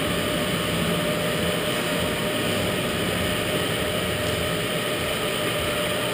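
Steady machine hum and hiss of an indoor electric go-kart arena, with a faint steady tone running through it.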